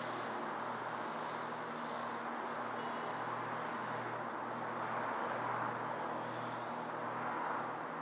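Distant city road traffic: a steady wash of passing cars that swells a little about five seconds in, over a low hum.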